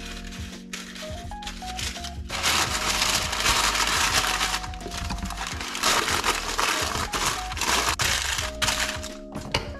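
A sheet of baking paper crinkling as it is crumpled and pressed into a round cake tin, starting about two seconds in and louder than the soft background music.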